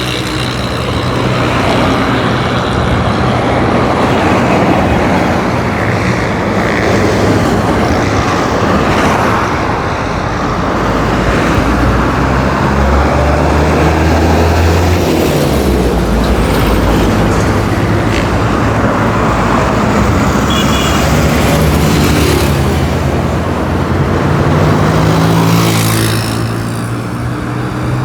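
Roadside traffic: motor vehicles driving past in an unbroken stream, with a steady noise of tyres and engines. Low engine hum swells and fades as vehicles come and go.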